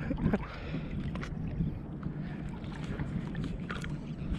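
Shallow saltwater sloshing and lapping around a camera held right at the waterline, with a steady low rumble and a few sharp splashes.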